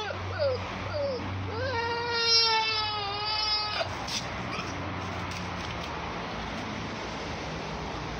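Goats bleating: two short calls, then one long bleat of about two seconds that wavers near its end. After it stops, only a steady low background hum remains.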